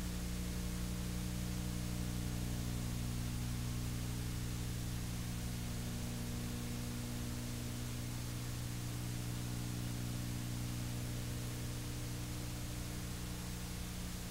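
Steady electrical mains hum with its evenly spaced overtones under a constant hiss, the noise floor of an old analog videotape recording; no animal sounds stand out.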